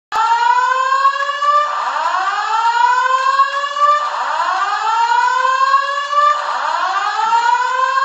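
Fire alarm evacuation signal sounding from a wall-mounted alarm speaker in a test: a slow rising 'whoop' tone, each sweep climbing in pitch over about two and a half seconds, then starting again from low. It starts suddenly and sounds four times.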